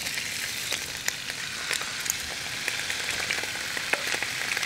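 Sliced red potatoes sizzling in hot olive oil in a nonstick frying pan as they are tipped in: a steady hiss with scattered small pops and crackles.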